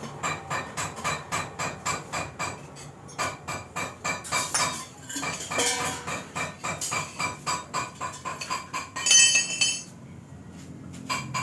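Rapid, steady metallic tapping, about five strikes a second, each with a short metal ring. About nine seconds in there is a louder, ringing metal scrape, after which the tapping drops away briefly.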